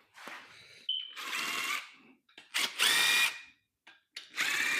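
Cordless power tool, a drill or impact gun, run in three bursts of about a second each with a steady motor whine.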